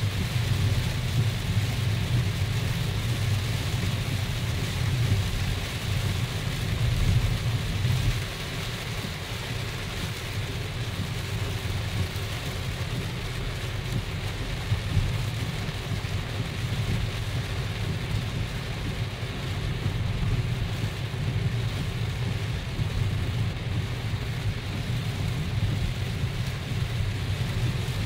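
Heavy rain falling on a car's windscreen and body, heard from inside the cabin, over the steady low rumble of the moving car on a wet road. It is a little quieter from about eight seconds in.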